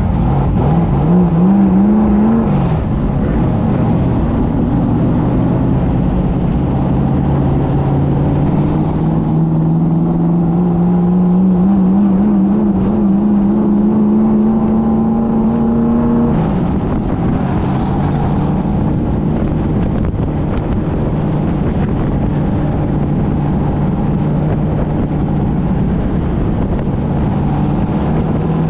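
Race car engine heard up close from the cockpit as the car pulls away and gathers speed. The revs climb, drop about two and a half seconds in, then rise slowly for a long stretch, drop again a little past halfway, and run steadily after that.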